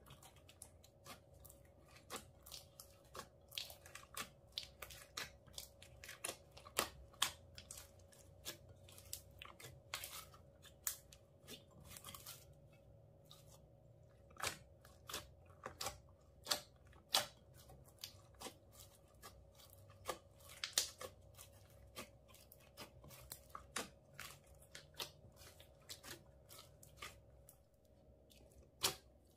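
Glitter- and bead-filled slime being kneaded, squished and pressed by hand in a glass dish, giving irregular sticky pops and crackles, several a second.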